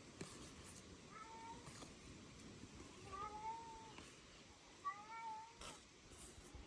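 Three faint short animal calls about two seconds apart, each rising then falling in pitch, with a few light clicks between them.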